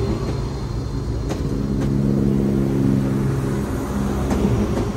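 Northern diesel multiple unit's underfloor engines under power as the train pulls out of the platform. The steady engine note peaks about two seconds in, then fades near the end over a low rumble.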